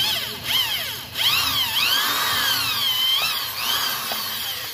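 Handheld electric drill boring holes in a wooden slat. Its motor whine rises and falls in pitch several times as the bit works into the wood, then cuts off at the end.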